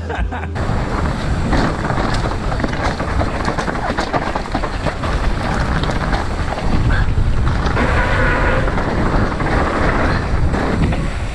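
Strong wind on the microphone: a loud, continuous rumble and hiss with scattered clicks and knocks.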